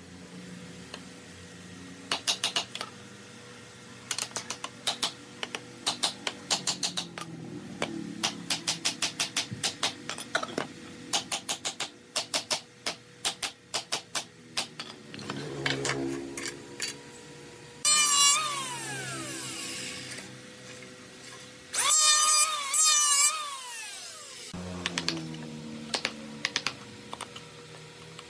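Hammer and mallet blows knocking the joints of a wooden frame together, in quick clusters of sharp taps. Twice a small power tool runs for about two seconds, its whine falling as it spins down; these are the loudest sounds.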